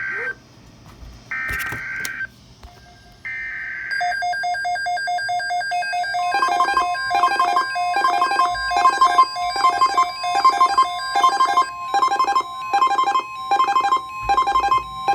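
NOAA Weather Radio emergency alert signal: three short bursts of screechy digital SAME data tones about a second apart, then an electronic alert tone sounds, a steady tone under beeps pulsing about one and a half times a second.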